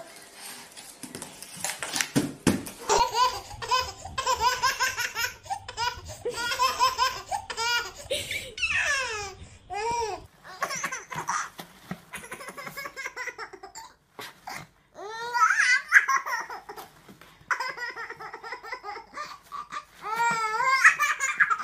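Baby laughing in repeated quick bursts of giggles and squeals, broken by a short silence about two-thirds of the way through.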